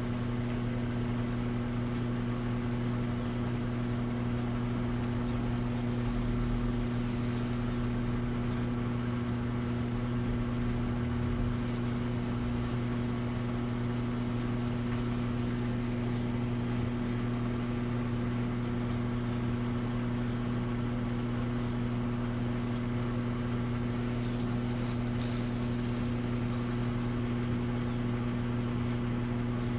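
Electrolux Essential Care 11 kg top-load washing machine running with a steady low hum and no change in pace.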